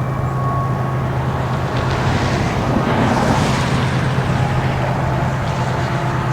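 Freight train headed by a lash-up of eight or nine diesel locomotives passing, a steady low engine drone under a rushing noise that swells from about two seconds in.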